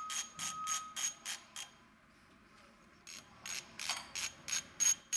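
Ratchet spanner clicking in quick, even strokes, about three clicks a second, as a bolt on the engine's thermostat housing is undone. The clicking pauses for about a second and a half midway, then resumes.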